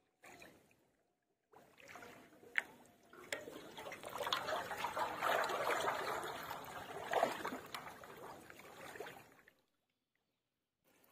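Pond water sloshing and splashing as a large metal basin is pushed and dipped through it while wading, with a few sharp knocks. The sloshing builds over a couple of seconds, runs loudest for several seconds, then cuts off suddenly.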